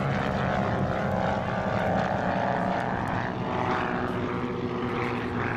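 Northrop N9MB flying wing's two pusher-propeller engines running steadily as it flies past overhead, a continuous engine-and-propeller drone.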